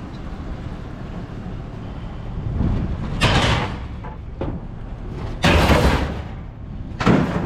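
Metal dumpster door sliding and scraping open, three loud grating pushes of under a second each, over a low steady hum.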